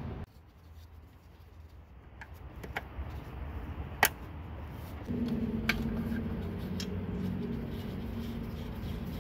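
Scattered light clicks and taps of hand tools and metal parts being handled, the sharpest about four seconds in. From about five seconds in, a steady low hum with a few held tones runs under them.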